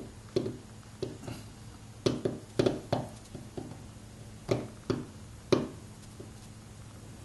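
Steel seal-carving knife cutting into a seal stone, a series of about a dozen short, sharp scraping cuts at an irregular pace as the blade is pushed through the stone and chips it away.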